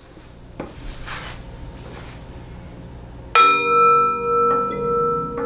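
Singing bowl struck once with a mallet about three seconds in, then ringing on with several steady tones whose loudness swells and fades in a slow wavering pulse. Faint shuffling comes before the strike.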